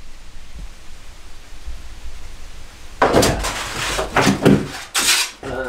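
Faint room tone. About three seconds in, loud rustling, scraping and several knocks start as large stiff ceiling panels are lifted and handled.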